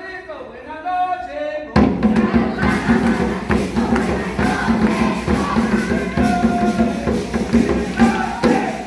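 A group of people singing and chanting together. A few held voices come first, then many voices come in loudly and all at once about two seconds in.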